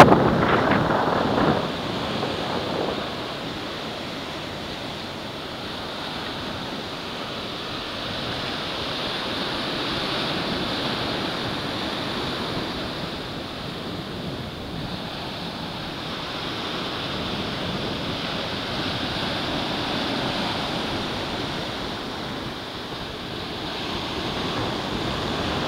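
Small, knee-high ocean surf washing onto a sandy beach: a steady hiss that swells and eases slowly as the waves break. Wind buffets the microphone at the start and then settles.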